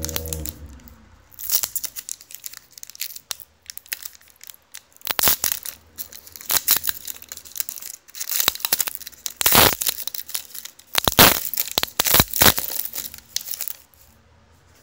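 A trading-card pack's foil wrapper being torn open and crinkled by hand, in irregular bursts of tearing and rustling that stop shortly before the end.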